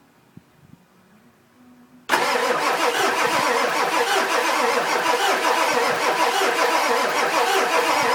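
Two small clicks, then about two seconds in the starter suddenly cranks the 2000 Ford F-250's 7.3-litre Power Stroke V8 turbo-diesel, turning it over steadily without it catching: a crank-no-start that the owner suspects lies in the injectors.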